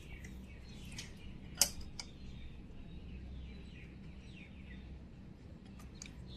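Birds chirping, many short falling calls, over a low background hum, with a few light clicks and one sharper click about a second and a half in.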